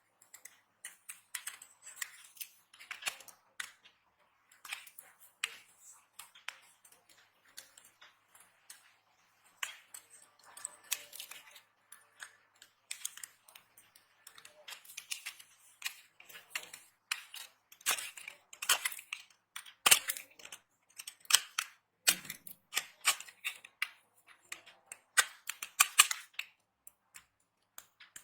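Dry soap being cut and crumbled: a run of crisp cracks and small crackling clicks, irregular, getting louder and denser in the second half.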